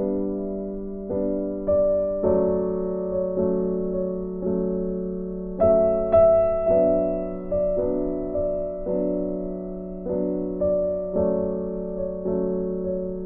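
Background music: slow, gentle piano or electric-piano notes, each struck and left to fade.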